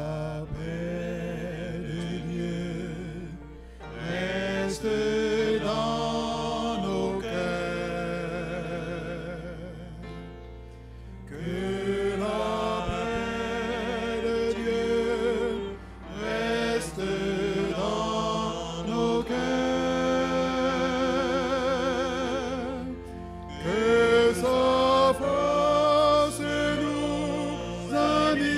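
Slow choral singing: a group of voices holding long notes with vibrato, in phrases of four to seven seconds with short breaks between them.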